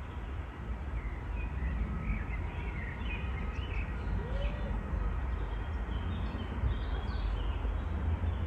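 Countryside ambience: a steady low rumble with small birds chirping and twittering on and off over it.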